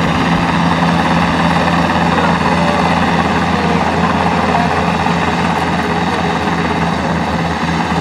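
Helicopter flying overhead, its rotor and engine running steadily and loudly.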